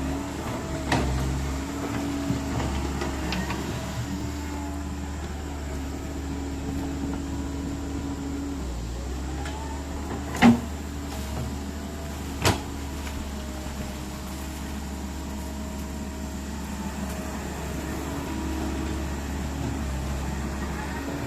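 Komatsu PC130 hydraulic excavator running, a steady low engine hum under a higher whine that shifts in pitch as the hydraulics work. Two sharp metallic clanks stand out about halfway through, two seconds apart.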